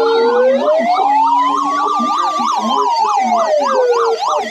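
Two sirens sounding together: a slow wail that rises and falls once over about four seconds, overlaid with a fast yelp.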